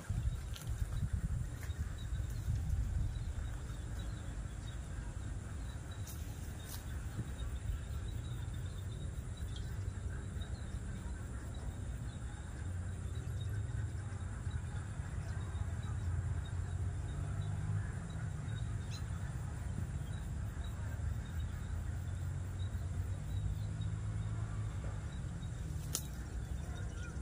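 Steady low rumble of wind on the microphone, with a few faint clicks about six seconds in and near the end.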